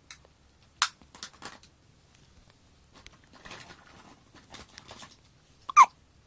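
Hiccups, part of a bout that keeps going: near the end a sharp hic with a short falling squeak. Earlier there are a sharp click about a second in, a few softer clicks and some soft rustling.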